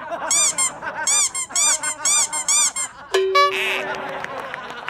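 Squeaky-toy squeaks in a quick series, about eight of them, one per step, the sound effect of squeaky shoes as someone walks. About three seconds in they stop, and a short held tone with a noisy burst follows.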